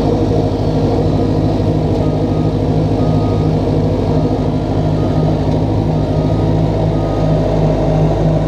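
Small crawler dozer's diesel engine running steadily under load, heard from the operator's seat as the machine moves on its tracks.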